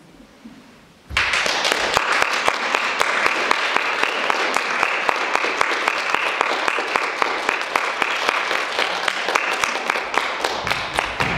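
Audience applauding, breaking out suddenly about a second in and keeping up a dense clapping that thins slightly near the end.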